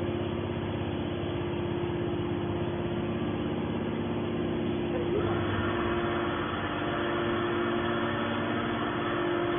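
Hydraulic scrap-metal baler running, its pump giving a steady hum. About five seconds in the noise turns brighter and busier.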